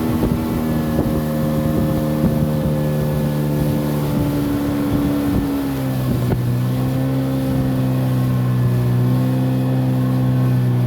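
Motorboat engine running steadily, its pitch dropping about halfway through as it is throttled back, with scattered knocks in the first half.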